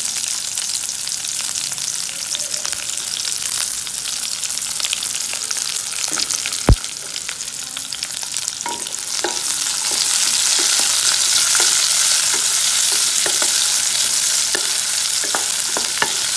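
Sliced shallots, curry leaves and green chillies sizzling in hot coconut oil in a kadai. The sizzle grows louder about ten seconds in. A single sharp click comes near the middle, and scattered small pops follow.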